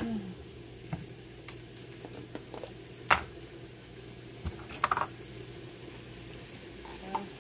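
Sharp clicks and clinks of kitchen utensils being handled: a loud one about three seconds in, a quick cluster of three about five seconds in, and a few softer ones, over a steady low hum.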